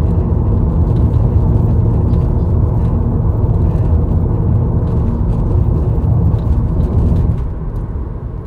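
A steady low rumble, dropping in level near the end.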